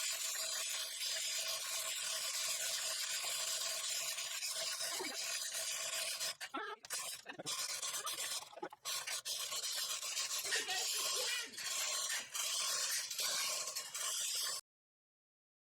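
Continuous rasping, rubbing noise with many small clicks, briefly dipping a few times in the middle and cutting off suddenly near the end.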